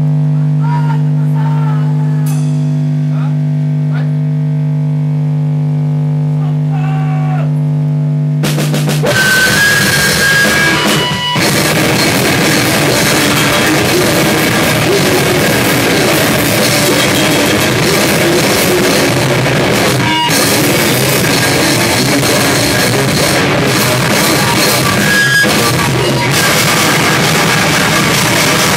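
A rock band playing live and loud. A single amplified note with strong overtones is held steadily for about eight seconds. Then the drum kit and distorted guitars come in together and the full band plays on.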